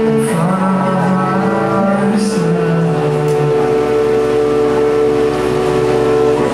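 A post-rock band playing live through a PA: long ringing guitar and keyboard notes held under a male voice singing drawn-out notes.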